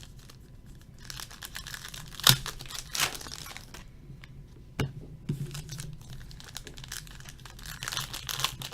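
Foil trading-card pack wrappers being torn open and crinkled by hand, with two sharp clicks about two and five seconds in.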